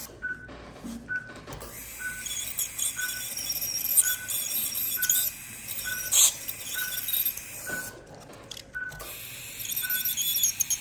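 Ultrasonic dental scaler hissing with its water spray as thick tartar is scaled off a dog's teeth. The tip clicks against the teeth, with a sharp clink about six seconds in, and the hiss cuts out briefly near the start and again about eight seconds in. Under it the anaesthetic monitor beeps steadily, about one and a half beeps a second.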